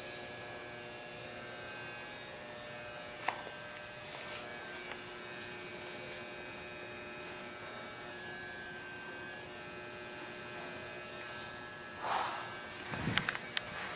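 Steady high-pitched buzzing of insects, with a click about three seconds in and a low thump with a few clicks near the end.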